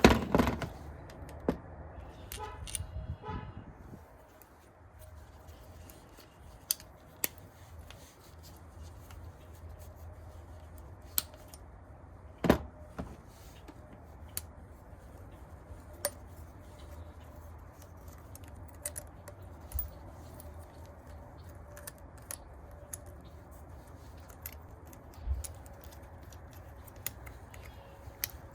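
Scattered light metallic clicks and knocks of hand work on the engine's air intake hose and its fittings, with a few louder knocks at the start and one about midway, over a faint steady hum.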